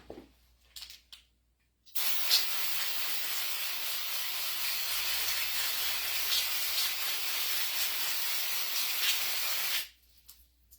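Cleaner sprayed from a can onto a disassembled hydraulic pump to wash the oil off: one continuous hiss starting about two seconds in, lasting about eight seconds and cutting off suddenly. A few faint clicks come just before it.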